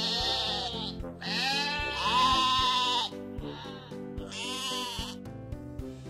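Sheep bleating several times over instrumental background music. The longest and loudest bleat falls about one to three seconds in, with shorter, fainter ones before and after it.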